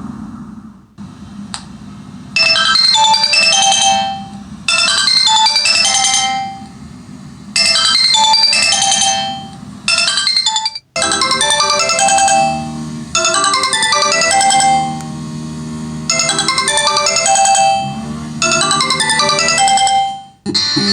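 Synthesized phone ringtone tune played loudly through a Philips 80 W woofer speaker. A short melody of high notes repeats in phrases of about two seconds with brief gaps. Near the middle it breaks off for an instant, and a lower bass part joins the melody.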